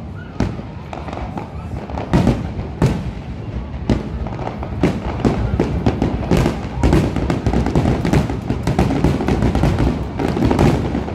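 Aerial fireworks display: shells bursting in quick succession. The bangs come faster and denser from about halfway through.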